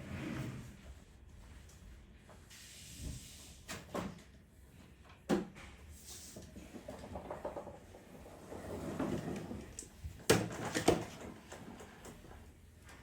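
Scattered sharp knocks and clatters of things being handled, with softer rustling between them; the loudest two come close together about ten seconds in.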